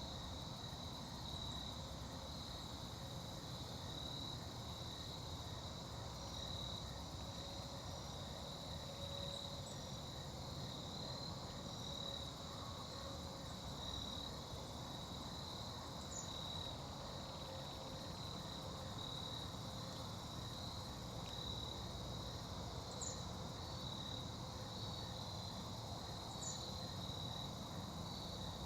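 Chorus of insects, crickets by their sound, trilling steadily at one high pitch, over a faint even background hiss. A few brief faint high chirps come in the second half.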